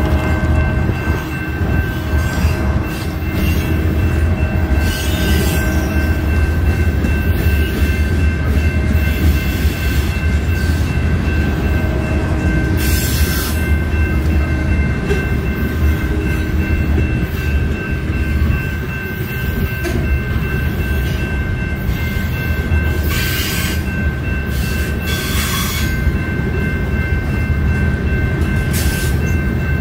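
CN freight train cars rolling past on the rails: a steady heavy rumble with a thin steady whine above it and a few brief sharp noises along the way.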